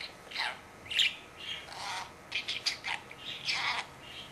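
Budgerigar talking: a quick run of about ten short, high-pitched, chirpy syllables with brief gaps between them.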